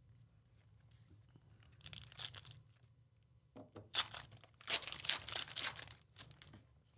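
Foil wrapper of a Panini Elite Extra Edition baseball card pack being torn open and crinkled by hand. There are a few short rips around two seconds in, then louder tearing and crinkling from about three and a half seconds until just before the end.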